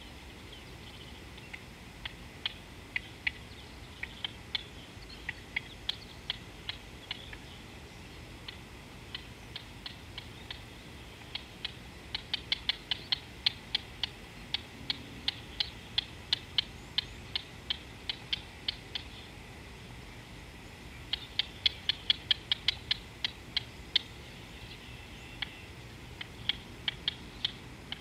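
Wild animal calls: short, sharp, high chirps repeated in irregular bouts of several a second, over a steady low background hiss.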